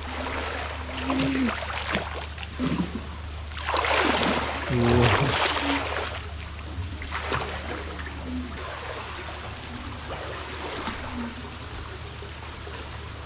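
Water splashing and sloshing as a child swims through a small swimming pool, loudest about four to six seconds in.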